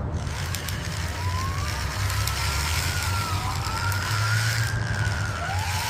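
A heavy vehicle's engine rumbling steadily and low, with a faint siren wailing slowly up and down over it.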